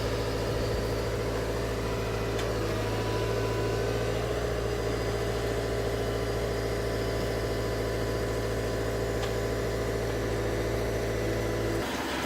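Hydrema rail excavator's diesel engine running at a steady speed; the low part of the hum drops away abruptly near the end.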